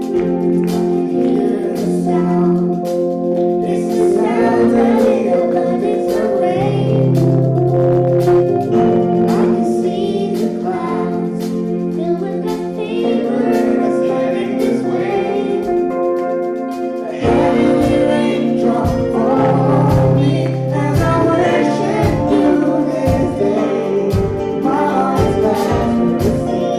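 Church choir singing a gospel worship song over keyboard chords and drums; the low beat gets heavier about two-thirds of the way through.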